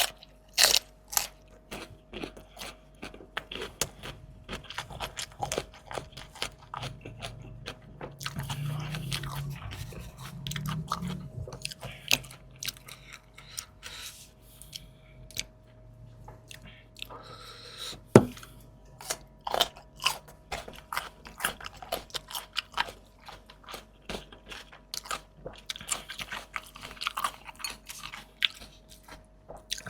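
Close-miked eating: crisp, crunchy bites and chewing of fried fish and raw vegetables, in quick irregular crunches, with one sharp loud crunch about eighteen seconds in. A faint steady hum sits under it.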